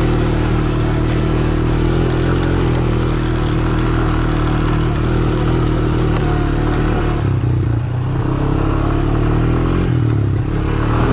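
ATV (quad bike) engine running under way with some clatter from the machine; the engine note eases off briefly about seven seconds in and again near ten seconds.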